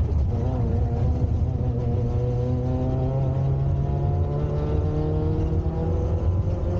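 Peugeot 106 Rallye rally car's engine heard from inside the cabin, pulling under load with its revs climbing slowly and steadily over a heavy road rumble.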